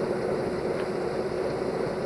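Freight train of hopper wagons rolling slowly through a station: a steady rumble with a low, even hum running under it.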